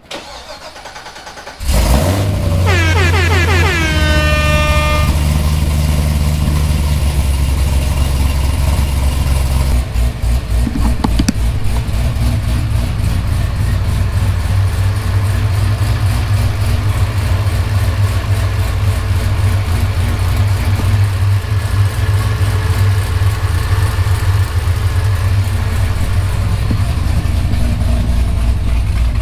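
The 6.2-litre supercharged LS9 V8 of a 2012 Corvette ZR1, breathing through new longtube headers, cranks briefly and fires up for the first time about two seconds in. A whine falls away over the next few seconds, then the engine idles steadily, and about ten seconds in the idle settles into an even, pulsing rhythm.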